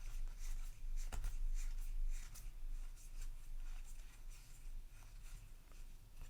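Crinkling and rustling of a booster pack's foil-plastic wrapper being opened, with playing cards slid and handled: a run of irregular soft crackles and ticks, louder in the first couple of seconds.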